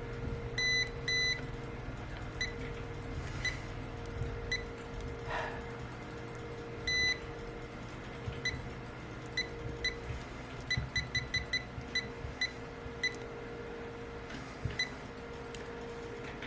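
Short, high-pitched electronic beeps from a digital heating pad's control buttons as its temperature is being set, about twenty of them, some single and some in quick runs. A faint steady hum runs underneath.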